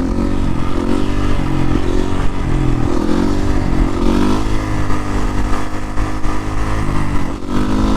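2019 Suzuki RM-Z450 supermoto's single-cylinder four-stroke engine, its top end freshly rebuilt, under way: it revs up through the gears several times, holds a steady note for a few seconds, then accelerates again near the end.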